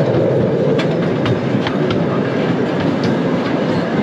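Open-air passenger cars of a miniature park train rolling along the track: a steady rumble with several sharp clicks along the way.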